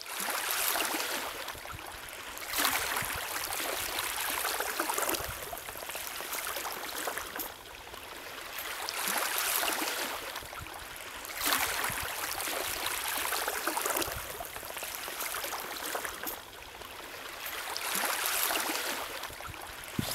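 Small waves lapping and washing on a lakeshore, swelling and ebbing every two to three seconds.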